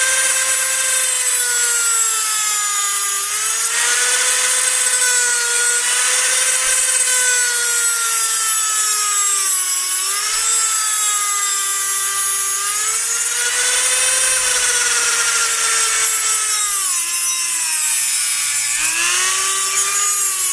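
Dremel rotary tool cutting a slot in half-inch aluminium bar stock. Its high motor whine runs continuously, dipping in pitch every few seconds as the cutter bites under load, then recovering.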